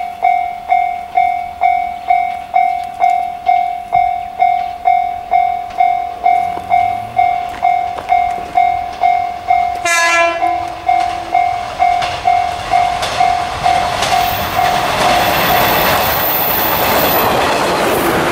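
Japanese level-crossing alarm ringing in a steady electronic ding-ding, about two and a half strikes a second. About ten seconds in a train horn sounds briefly, and then a JR Ryomo Line 115-series train passes over the crossing with a rising rumble of wheels on rail that covers the bell as it stops.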